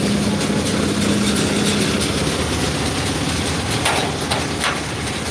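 Water-tanker truck's engine idling with a steady low hum, which fades about two seconds in, over a continuous wash of road-traffic noise.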